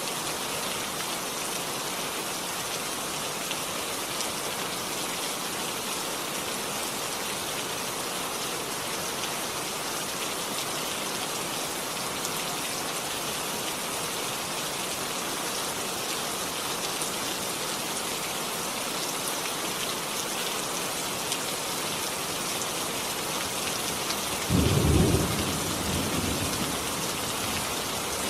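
Steady rainfall, with a single low rumble of thunder near the end that starts suddenly and dies away over a couple of seconds.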